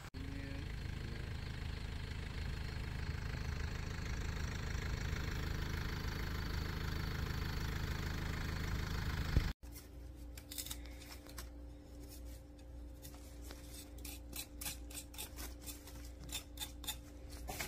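A steady low rumble with hiss that stops abruptly about nine and a half seconds in. It is followed by a knife cutting young radish stems and greens, a quick string of short crisp clicks and snips with leaves rustling.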